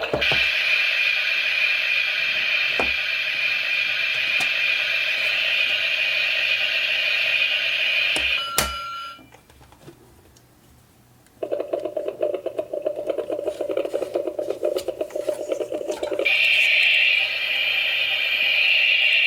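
Small battery-powered toy kitchen appliances running: a steady whirring with a hiss, then a click and a short beep. After a brief pause a rapid buzzing motor runs for about five seconds, and the whirring starts again near the end.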